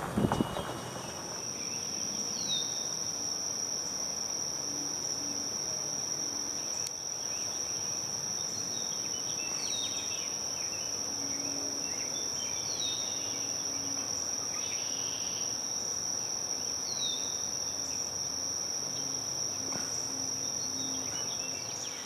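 A steady, unbroken high-pitched insect trill, with a few short falling chirps over it.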